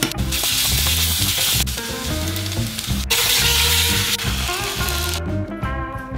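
Background music with a repeating bass line. Two stretches of loud, sizzle-like hiss lie over it, one in the first second and a half and one from about three to four seconds in.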